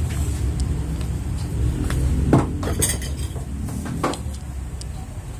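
Plates and cutlery clinking as they are moved about on a table, a few separate knocks and clinks with the loudest a bit over two seconds in, over a steady low hum.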